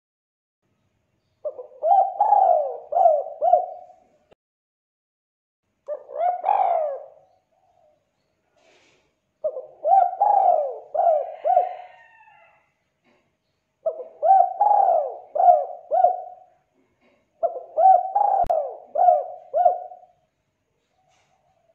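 Spotted dove cooing: five phrases a few seconds apart, most of them a quick run of four or five coos, and the second a shorter one.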